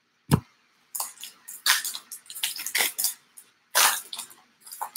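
Baseball trading cards being flipped through by hand: irregular crisp papery slides and flicks as cards are pushed off the stack one after another, with a short thump near the start.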